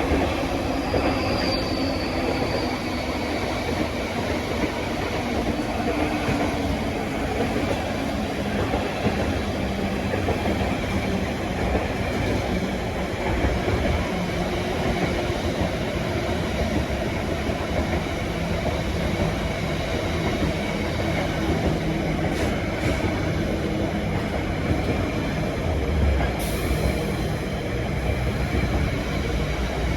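Freight train wagons rolling slowly past on the rails, a steady rumble of wheels on track, with a brief high wheel squeal about a second and a half in.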